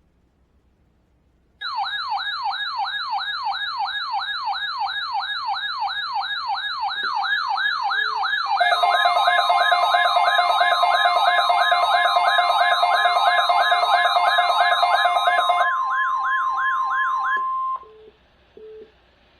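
Weather alert radio sounding a loud, fast warbling siren alarm for a NOAA Weather Radio weekly test. About seven seconds in it is joined by a steady high tone, the broadcast warning alarm tone, plus a second steady tone, and a few short low beeps come through. Everything cuts off about two seconds before the end.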